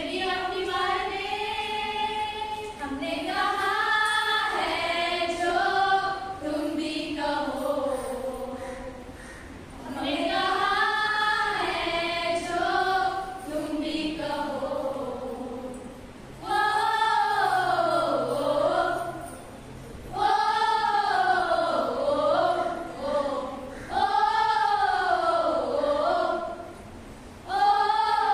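A group of women singing a patriotic song together, in sung phrases that rise and fall in pitch with short breaks between them.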